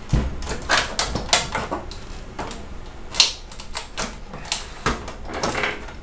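Irregular plastic clicks and snaps from a microwave oven door as its cover is pried and worked open with a spatula, with a sharper crack about three seconds in.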